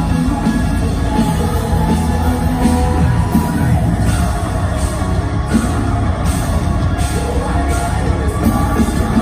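Metalcore band playing live through a concert PA, recorded from the audience: distorted guitars, bass and drums, with vocals, steady and loud.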